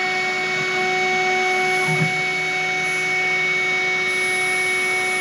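Home-made CNC router milling isolation traces into a copper-clad circuit board with an engraving bit. A steady high spindle whine runs over the hiss of a vacuum nozzle sucking up the dust. The stepper motors' low humming tones shift briefly about two seconds in as the axes change direction.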